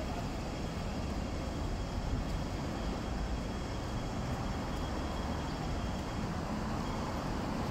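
Steady city street ambience, mostly the low rumble of road traffic.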